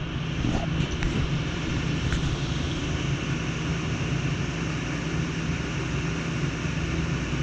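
Steady low machinery hum with an even rush of noise over it, unchanging throughout.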